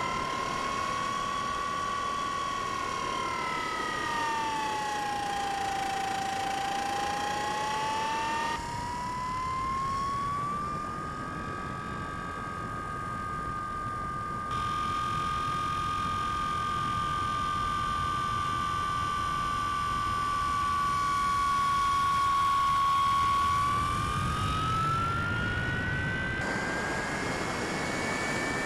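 Electric motor and propeller of a Bixler 3 model plane whining in flight, the pitch dipping and rising with the throttle and climbing sharply near the end, over a steady rush of air noise.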